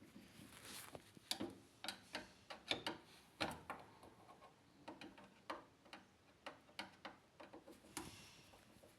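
Irregular light clicks and knocks, about two a second and unevenly spaced, from small hard parts being handled.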